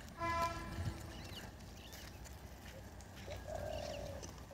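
Outdoor ambience at a pond. A short pitched, horn-like call sounds about a quarter second in. A low bird call starts near the end.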